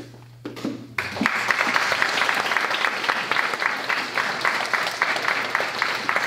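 Small audience clapping, starting suddenly about a second in and going on steadily.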